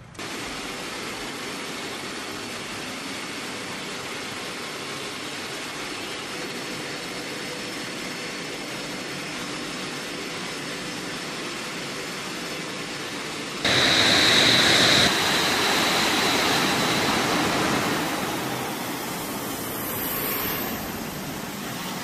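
Saab JAS 39 Gripen's jet engine running: a steady rushing noise with a thin high whine. About two-thirds of the way through it jumps suddenly louder and the whine grows strong, then eases off.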